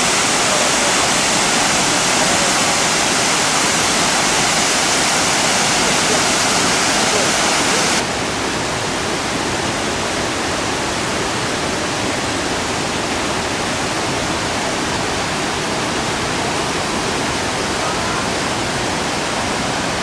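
Steady rushing of water in a fast mountain stream that runs down to a waterfall. About eight seconds in it drops suddenly in level and loses some of its hiss.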